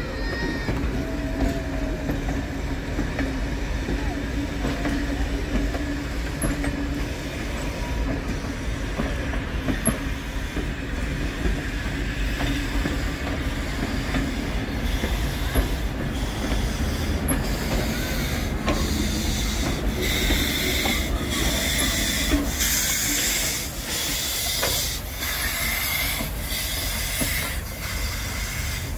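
Passenger carriages rolling slowly past, their wheels clicking over the rail joints at an even rhythm with some wheel squeal. From about twenty seconds in, a steady steam hiss rises as the steam locomotive 3642 draws near with steam blowing from its cylinders.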